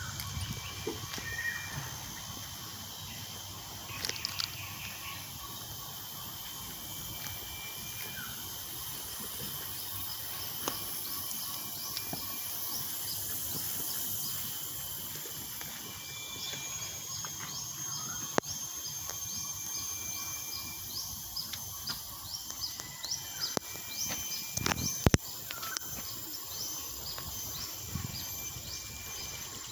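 Outdoor wildlife sounds: a steady high insect drone with short, repeated bird calls and chirps, and rapid high ticking in the second half. A few sharp clicks or knocks stand out, the loudest near the end.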